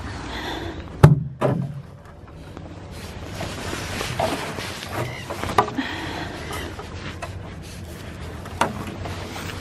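Hard plastic hay feeders knocking and rattling against a metal pen panel as they are handled and unhooked. The loudest knock is about a second in, followed by several lighter ones.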